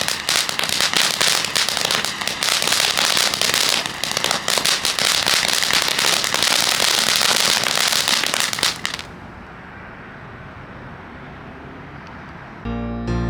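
Great Grizzly Unicorn Fountain firework spraying, a loud hiss thick with rapid crackling pops, which stops about nine seconds in, leaving a quieter steady background. Keyboard music starts near the end.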